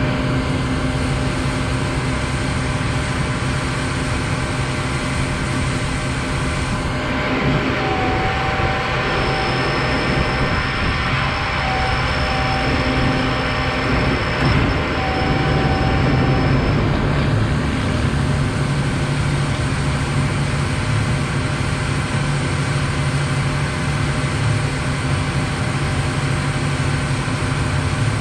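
Concrete boom pump truck running steadily under load: its diesel engine and pump machinery make a constant heavy drone. A thin high whine comes and goes for several seconds in the middle.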